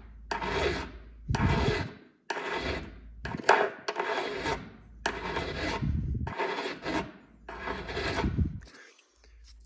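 Flat hand file rasping across the top face of an AK magazine catch in about nine strokes, roughly one a second, stopping shortly before the end. It is taking a little metal off the catch so that tight magazines will lock in.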